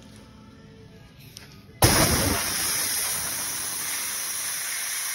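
Compressed-air blow gun blasting air over a freshly turned copper commutator: a loud, steady hiss starts suddenly a little under two seconds in and runs on without a break.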